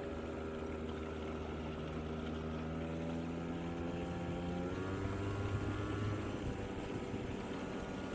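Hyosung Sense 50cc two-stroke scooter engine running on a little throttle. The revs rise briefly about halfway through, then settle back down. It is freshly swapped in and refitted with an exhaust gasket, and it will not yet hold an idle on its own.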